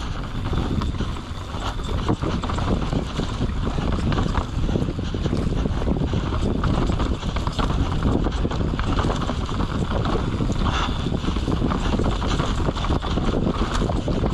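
Mountain bike ridden fast down a rough trail: wind buffets the microphone over a continuous rumble and rattle of tyres and frame on the ground.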